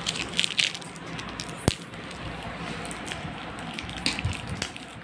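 Scattered light crackles and clicks of a chocolate bar's plastic wrapper being handled and torn open, with one sharp click a little under two seconds in.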